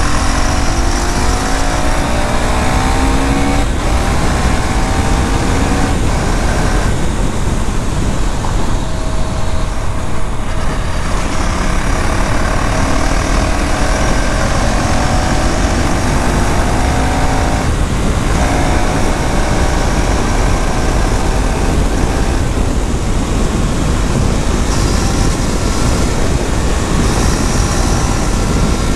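KTM Duke 390's single-cylinder engine and exhaust pulling hard on the move, the revs climbing and then dropping briefly at each gear change, several times over, under heavy wind rush.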